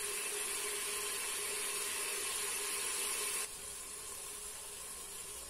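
Onion frying in an electric multicooker pot: a steady, gentle sizzling hiss with a faint hum under it, dropping in level about three and a half seconds in.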